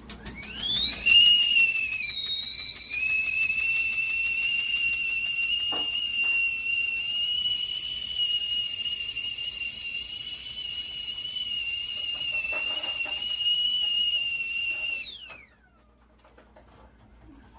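GGC stainless steel stovetop kettle whistling at the boil. The whistle comes in with a rising pitch and holds one steady, shrill note for about fourteen seconds. Near the end it slides down in pitch and stops.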